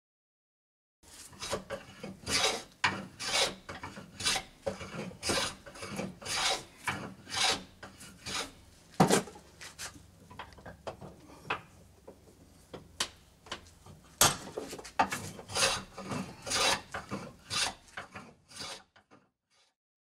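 A hand tool rasping back and forth across wood in regular strokes, about two a second. The strokes turn faint for a few seconds partway through, then pick up again.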